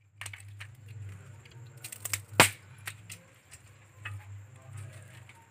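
Dry twigs and sticks clicking and knocking as they are fed into a wood fire in a small clay stove, with one louder sharp crack about two and a half seconds in. A low steady hum runs underneath.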